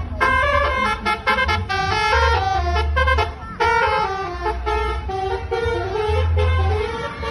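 Basuri telolet multi-tone bus horn playing a fast melody of short, stepped notes, with several horn tones sounding together. A low drone comes and goes underneath.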